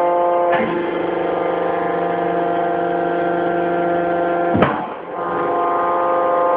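Background music of long held chords, changing to a new chord about half a second in and again near the end.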